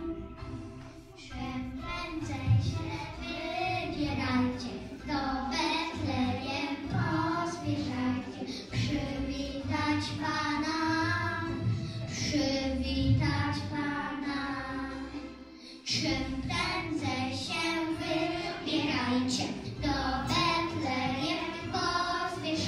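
Children singing a song with instrumental accompaniment, with a brief break about sixteen seconds in.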